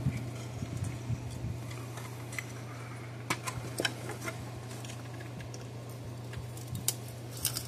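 Sparse light clicks and taps as a circuit board and small hand tools are handled in a plastic fence-charger case, with a cluster of clicks about halfway through and a couple more near the end, over a steady low hum.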